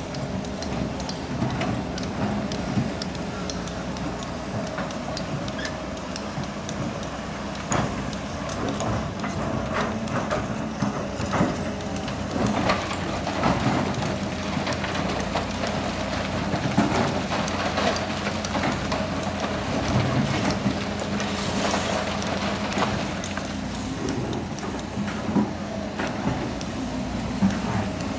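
Hitachi hydraulic excavator's diesel engine running steadily under load as it digs and swings. Irregular clatter and knocks of rock and sand run through it as the bucket scrapes the pit floor and dumps into a dump truck bed.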